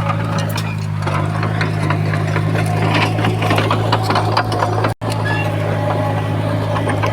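Komatsu bulldozer's diesel engine running with a steady low drone, overlaid with frequent metallic clicks and rattles. The sound drops out for an instant about five seconds in.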